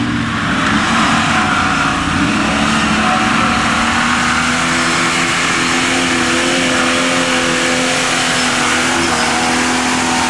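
Jeep engine held at high revs as it climbs a steep dirt hill, its tires spinning and throwing dirt. The engine note holds steady and loud throughout.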